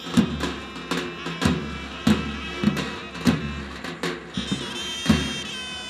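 Davul and zurna playing traditional oil-wrestling music. The davul bass drum beats steadily, about one and a half strikes a second, under the shrill, held notes of the zurna reed pipe. The pipe comes to the fore about four seconds in.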